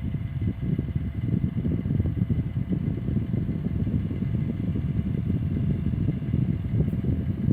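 Saivod FE 10 electric fan running, its air stream buffeting the microphone with a low, fluttering rumble, over a faint steady motor whine.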